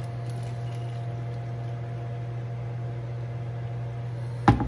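Steady low appliance hum with a couple of faint steady tones above it. Near the end, one sharp knock of the plastic pitcher set down on the wooden cutting board.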